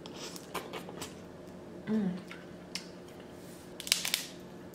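Snow crab eating sounds: chewing and scattered sharp clicks of crab shell, then a cluster of loud cracks near the end as a snow crab leg shell is snapped apart by hand. A short hummed 'mm' comes about two seconds in.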